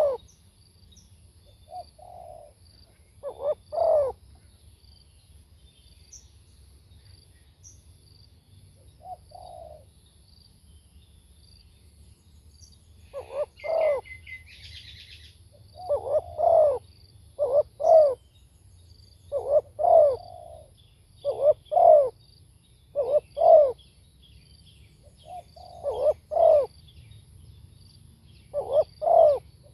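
Spotted dove cooing: phrases of short low coo notes, sparse at first, then coming regularly and louder from about halfway on. A brief higher twittering comes about 13 seconds in.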